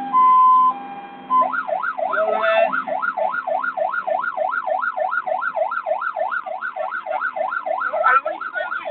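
Fire engine's electronic siren. A two-tone hi-lo alternation runs for about a second, then it switches to a fast yelp that rises and falls about three times a second.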